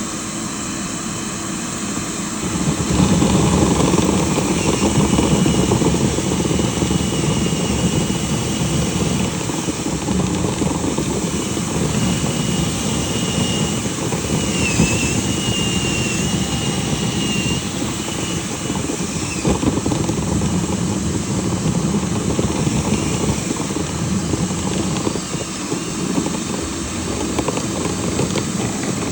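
Vent-cleaning equipment's motor running steadily, getting louder about three seconds in, with a thin high whistle over the middle stretch.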